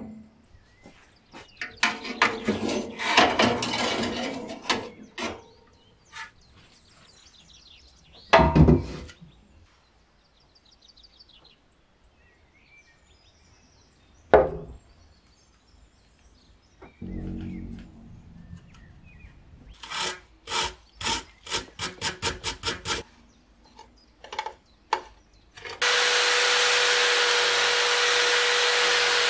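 Workshop handling of metal stove parts: scraping and knocks, then a quick run of about a dozen rhythmic strokes. About three-quarters through, a handheld power tool with a small wire brush starts and runs steadily against a metal stove plate, with a constant whine, cleaning off rust.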